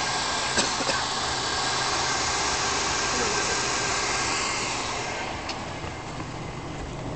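Car engine idling with the hood open: a steady low hum under a loud even hiss, the hiss fading about five seconds in.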